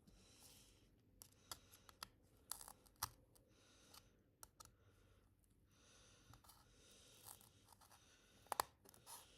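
Faint scattered clicks and short scrapes of small prying tools and a screwdriver working along the edge of an iPhone 2G's housing as it is levered up, with two sharper clicks near the end.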